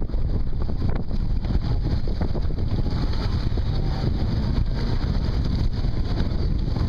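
Strong wind buffeting the microphone over the steady running of a jet ski engine and rough sea water.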